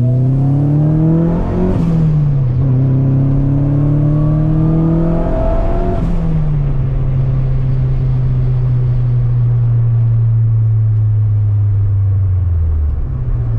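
Turbocharged Mazda Miata four-cylinder engine under hard acceleration on a test pull: the revs climb, dip briefly about two seconds in, and climb again. About six seconds in the throttle closes with a short rush of noise, and the engine runs on at a steady, slowly falling note.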